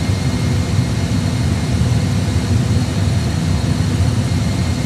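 Steady low rumble of Airbus A320 engine and airflow noise at climb thrust, as reproduced in a flight simulator cockpit.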